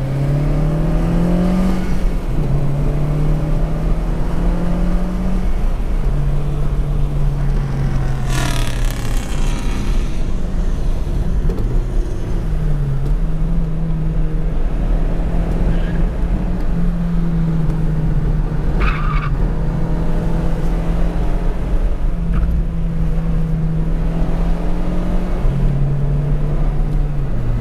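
Honda Civic Si's K20 four-cylinder engine under hard track driving, heard from inside the cabin, its note climbing and dropping with throttle and gear changes. The tires squeal briefly twice, about a third and two-thirds of the way through.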